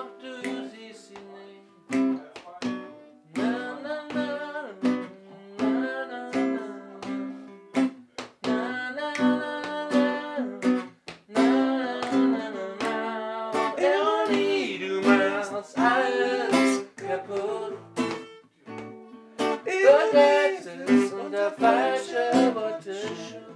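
Acoustic guitar playing picked notes, with a voice singing over it in the second half.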